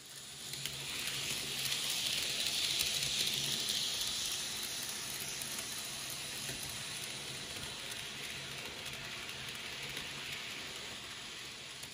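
A steady hiss like rain or sizzling, swelling over the first few seconds and then holding, with a faint low hum underneath.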